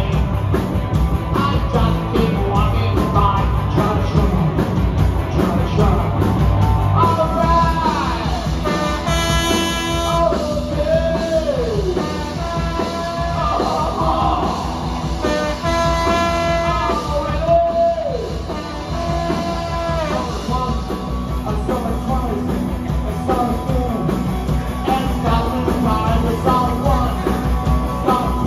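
Punk rock band playing live, with singing over loud guitars and drums. Near the middle a held melody line slides down in pitch twice.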